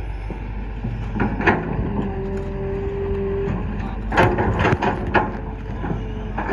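Heavy road-construction machinery engine running steadily, with several knocks and clanks, a cluster of them about four to five seconds in. A steady hum comes in about two seconds in and stops a second and a half later.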